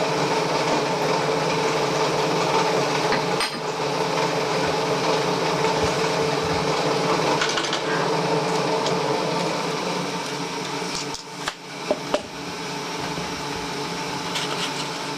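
Metal-cutting machine tool running steadily with an even hum while squaring up the surfaces of a metal part. About ten seconds in it gets quieter, with a few short knocks.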